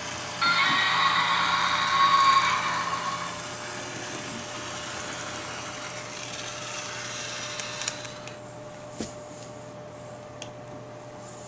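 A battery-operated Yonggary toy figure's built-in feature running: a loud, buzzing mechanical whir for about three seconds, then a fainter whir that stops about eight seconds in, followed by a few clicks as the plastic figure is handled.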